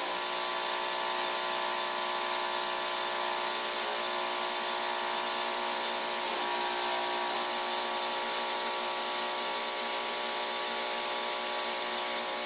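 Industrial ultrasonic cleaning tank running: a steady hiss from the cleaning solution over a cluster of steady hum tones, as a cutting-tool part held in the bath has oil, grease and chips blasted off it.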